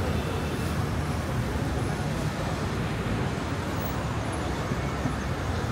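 City street ambience: a steady hum of road traffic with the voices of passers-by mixed in.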